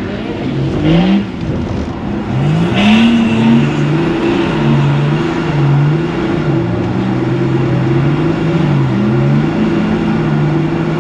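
BMW 330d's three-litre straight-six turbodiesel, heard from inside the cabin, revving up and down over and over as the car is driven hard through corners. The pitch climbs sharply about a second in and again around three seconds, then dips and rises several more times.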